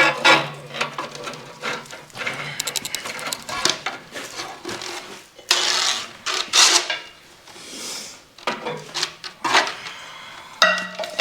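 Metal mechanism clicking and clattering as it is handled, with a quick run of even clicks about two and a half seconds in and louder scraping clatter around the middle.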